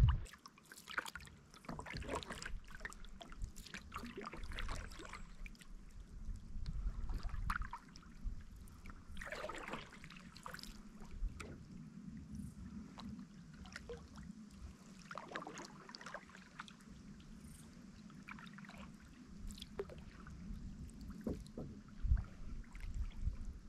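Kayak paddle splashing in river water with irregular strokes.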